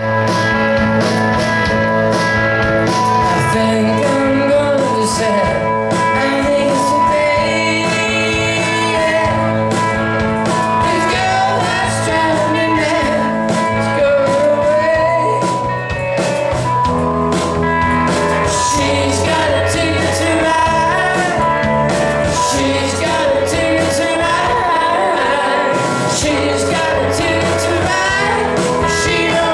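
Live rock band playing at full volume: electric bass, electric guitar and drum kit, with a man singing lead.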